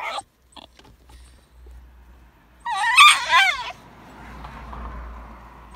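A basenji crying: one loud whine with a wavering pitch, about a second long, around the middle.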